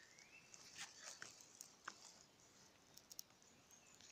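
Near silence: quiet woodland ambience with a few faint scattered ticks and a faint bird chirp about half a second in.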